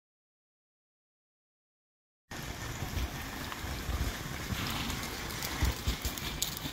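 Dead silence for about two seconds. Then outdoor ambience, mostly wind buffeting the microphone, with irregular low rumbling thumps.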